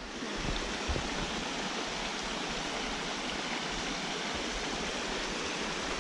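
Nineteen Mile Brook's water rushing in a steady, even stream.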